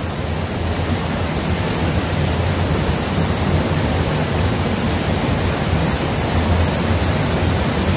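Steady rushing of a fast-flowing river over rocks.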